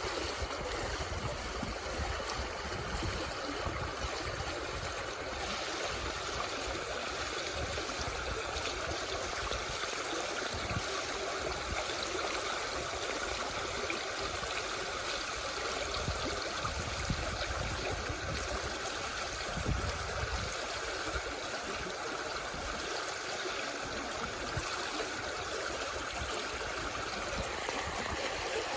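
Floodwater from melting snow running steadily, a continuous rush like a stream.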